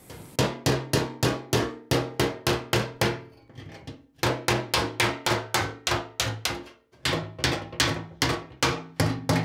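A small hammer striking the stamped steel lip of a fuel tank against a body dolly held behind it, dollying the lip flat: a run of sharp metallic taps about four a second, broken by two short pauses.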